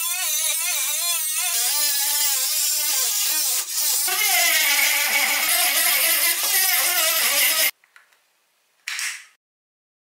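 Small handheld rotary tool with a sanding drum grinding the inside of a PVC pipe fitting, its motor whine wavering up and down as it bears on the plastic. It cuts off abruptly about eight seconds in, followed by a brief noisy burst about a second later.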